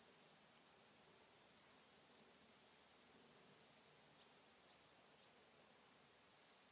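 Gundog whistle blown in single high, steady blasts to direct a dog at long range: a short blast at the start, then about a second and a half in a longer one that dips briefly in pitch and carries on as a steady blast of about two and a half seconds.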